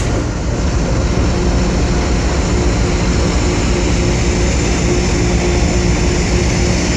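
Diesel locomotive running: a steady, loud engine rumble with a constant hum.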